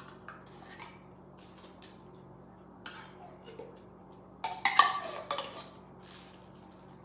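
A spoon scraping and clinking while thick condensed soup is scooped and spread over chicken breasts in a slow cooker: a few soft taps at first, then a louder run of clinks and scrapes about four and a half seconds in.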